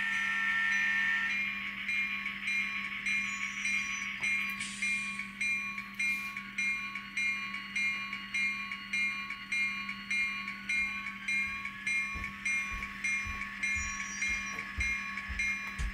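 Digital sound decoder's EMD 16-645 turbocharged prime mover sound played through an N scale locomotive's small speaker: a horn blast at the start, then a bell dinging about twice a second over the engine hum, with a turbo whine rising in pitch past the middle.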